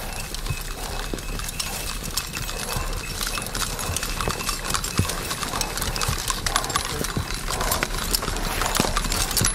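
Team of two Belgian draft horses pulling a plow through dry, sandy soil: heavy hooves plod in an irregular run of knocks over the steady scrape of the plow, growing a little louder near the end.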